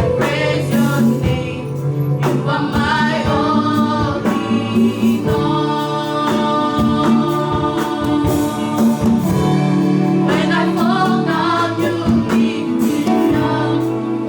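Church praise team singing a gospel worship song together, over a band with low bass notes and a steady drum beat.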